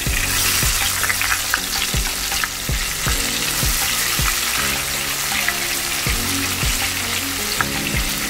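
Hot oil sizzling and crackling steadily as batter-coated oyster mushroom pieces deep-fry in a cast-iron pot.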